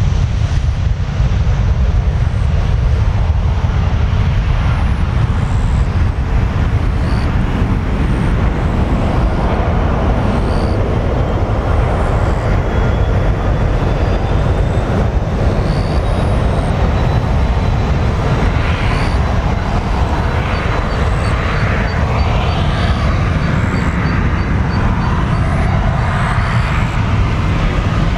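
Jet engines of an Airbus A320-200 airliner at takeoff power as it climbs away after liftoff: a loud, steady low rumble.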